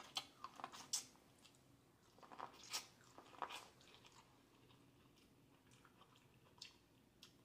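A person biting kernels off a buttered corn on the cob and chewing. The bites come in two bouts of quick clicks, one in the first second and another about two to three and a half seconds in, followed by quieter chewing.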